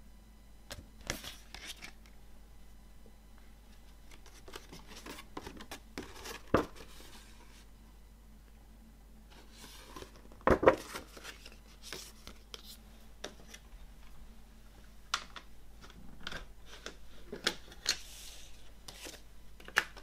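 Paper being handled: a folded poster insert and booklet pages rustling and crinkling as they are turned and unfolded, with scattered light taps and clicks. The loudest rustle comes about halfway through, and a sharp click near the end, where a plastic CD jewel case is being handled.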